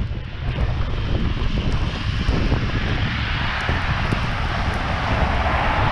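A vehicle driving past on a slushy wet road, its tyre hiss swelling over a few seconds, with a low rumble of wind buffeting the microphone.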